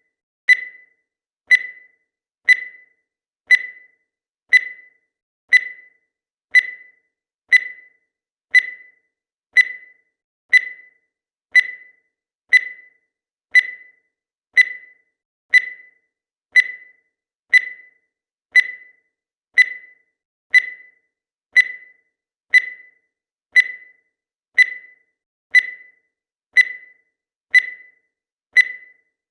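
Countdown timer sound effect: a short, high-pitched blip that fades quickly, repeating steadily once a second to count off the seconds.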